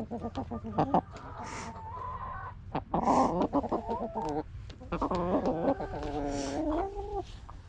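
Young chickens calling: a run of clucks and drawn-out, wavering trills, with scattered sharp clicks among them.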